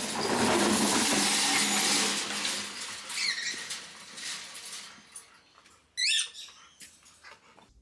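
A loud rushing noise that fades out over the first few seconds. Then pet birds give short squeaky chirps, one about three seconds in and a sharper one about six seconds in.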